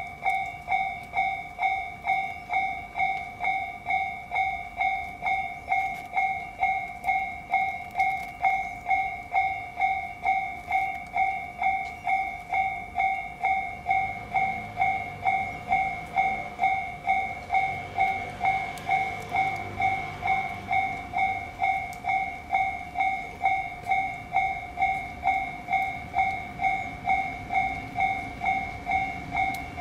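Japanese level-crossing alarm ringing its rapid, even electronic two-tone ding over and over. About halfway through, a train rumbles past the crossing, louder for several seconds and then fading.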